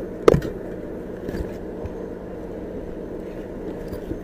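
A sharp knock about a third of a second in as items are handled during a search of a bag, then a steady low hum of an idling vehicle.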